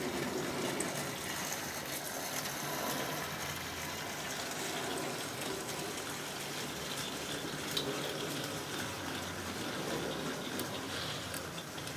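Model railway freight train rolling past along the track: a steady rushing noise of the wagons' wheels on the rails with a faint low hum.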